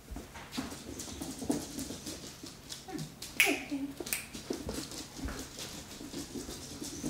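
Beagle puppy whimpering, with a sharper falling yelp about three and a half seconds in, over many light clicks and taps.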